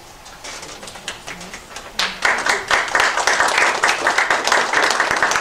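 Audience applauding: a few scattered claps at first, swelling into full applause about two seconds in.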